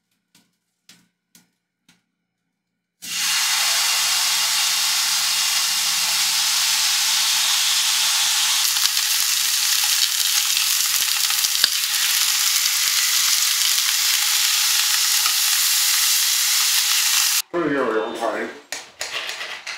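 Marbled beef short rib slices searing in a hot nonstick frying pan: a loud, steady sizzle starts about three seconds in and cuts off suddenly near the end. It is followed by clinks of cutlery on a plate, one of them briefly ringing.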